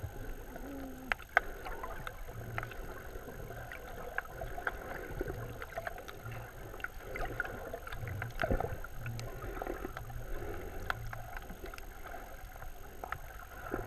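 Muffled underwater sound picked up by a submerged GoPro: a low, steady wash of moving water with many small scattered clicks and crackles.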